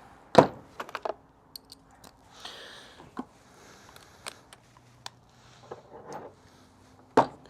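Tools being handled and sorted: scattered metallic clicks and knocks with some rustling, the sharpest knock about half a second in.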